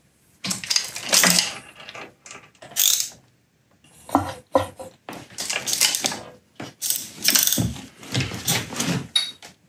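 Ratchet wrench clicking in repeated strokes as the KTM 1190 RC8 R's V-twin crankshaft is turned by hand, bringing the piston down in the opened cylinder.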